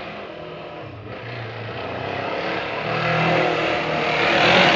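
Honda CB500 parallel-twin engine running and being revved, growing louder over the last couple of seconds. The exhaust is leaking at its middle section, which the owner takes for the source of the noise.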